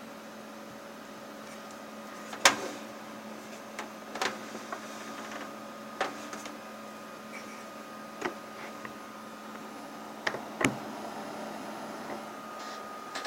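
A handful of sharp clicks and knocks at irregular intervals, the loudest about two and a half seconds in, over a steady electrical hum.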